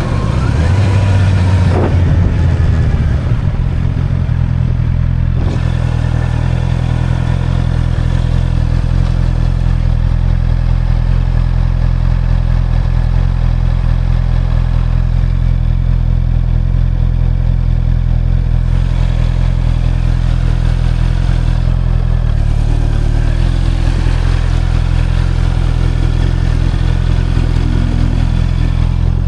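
Motorcycle engine idling steadily, a little louder for the first two seconds.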